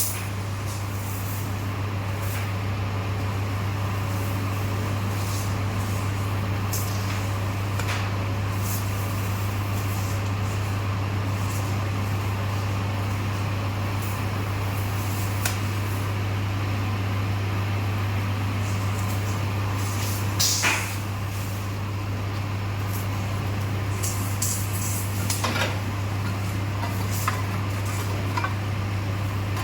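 Biocoal briquetting machine running with a steady low hum, with a few short knocks, the loudest about two-thirds of the way through.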